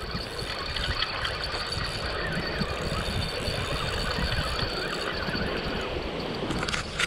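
Baitrunner spinning reel being cranked to reel in a hooked striped bass, over wind buffeting the microphone, with a sharp click near the end.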